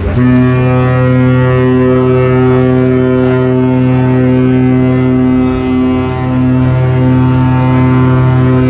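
Ship's horn blowing one long, steady blast, starting at the very beginning and dipping briefly about six seconds in before sounding on.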